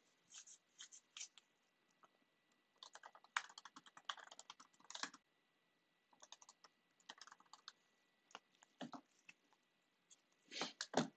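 Faint computer keyboard typing in quick bursts of key clicks with pauses between, and a couple of heavier knocks near the end.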